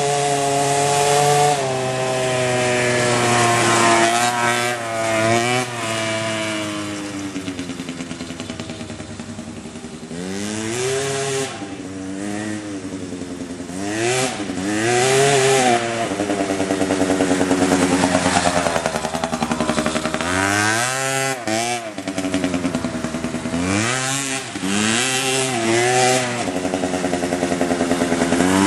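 Small two-stroke youth ATV engine revving up and falling back again and again as the throttle is opened and closed, with stretches of steadier running in between.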